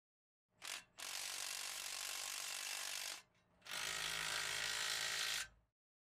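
Mechanical ratcheting sound effect: a brief burst, then two runs of about two seconds each with a short gap between them.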